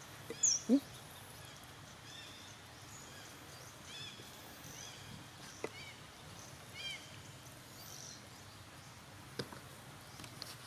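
Short animal squeaks about half a second in, then a series of faint, high, arched chirping calls over steady outdoor background noise, with a few sharp clicks later on.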